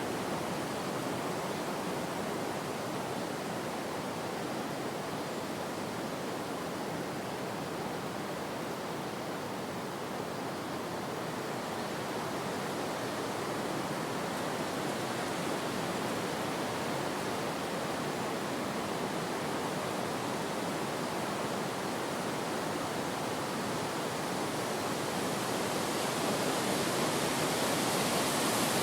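Wind blowing steadily as an even rushing noise, growing a little stronger near the end.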